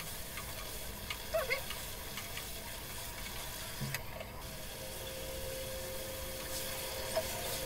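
Chicken curry simmering and sizzling in a kadai on a gas burner, a steady low hiss, with a few faint knocks from the wooden spatula and pan.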